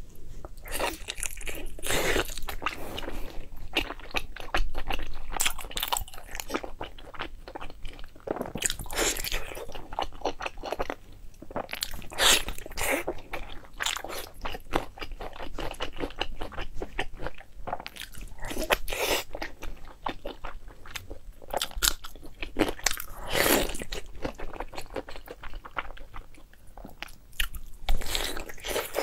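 Close-miked eating of braised beef knee bone: wet chewing with repeated crunchy bites as the cartilage and meat are bitten off the bone, with louder crunches every few seconds.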